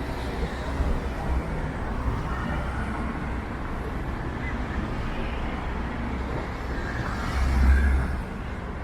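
City street traffic: a steady road-noise rumble of passing cars, with one vehicle going by close near the end, the loudest moment.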